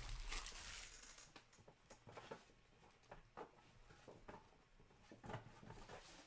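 Trading cards rustling as they are flipped through and set down in the first second, then only faint scattered taps and clicks in a quiet room.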